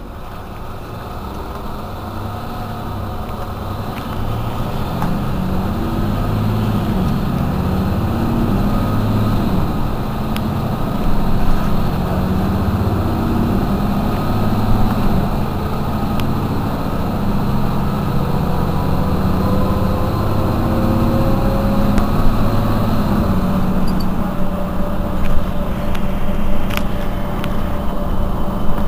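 Mercedes-Benz Citaro C2 city bus engine running under load and building up, louder over the first several seconds, with a slowly rising whine through the second half as the bus gathers speed. A few sharp clicks or knocks are spread through it.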